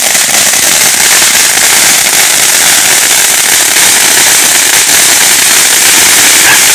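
Ground fountain firework spraying sparks: a loud, steady hiss.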